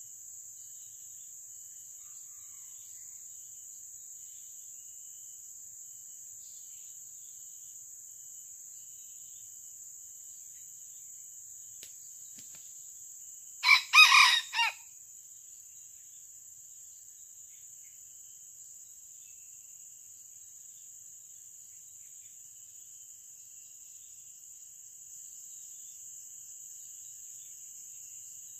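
Red junglefowl rooster crowing once, about halfway through: a short crow of about a second in a few quick pulses, over a steady high-pitched insect drone.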